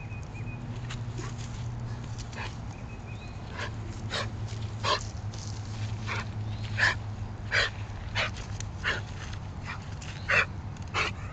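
German Shepherd whining thinly twice, then giving a run of short, sharp yips and barks, about one a second, louder in the second half.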